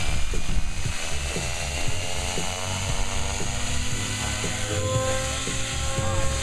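Compass Warp 360 electric RC helicopter spooling up: a whine from the motor and rotor rising slowly in pitch as the blades come up to speed for lift-off.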